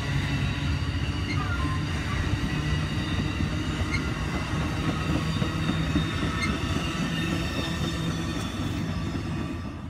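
Stainless-steel bilevel passenger train cars rolling past at speed: a steady rumble of wheels on rail, with a thin high ringing from the wheels above it.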